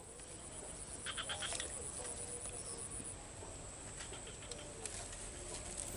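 Faint swamp ambience: frogs calling and a steady high-pitched insect whine, with a quick run of chirps about a second in.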